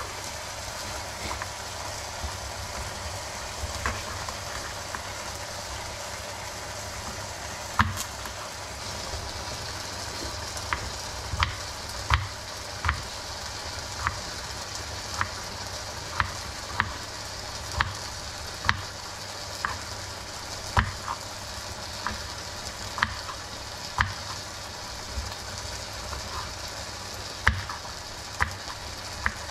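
Kitchen knife slicing and chopping garlic cloves on a bamboo cutting board. The blade knocks sharply on the wood, only now and then at first and then about once a second, over a steady background hiss.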